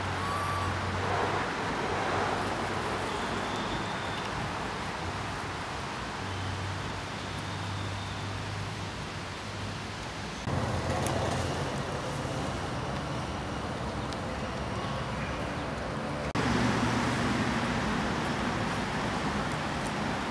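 Steady outdoor background noise with a low hum, changing abruptly twice where clips are cut together, with a few faint short chirps near the start.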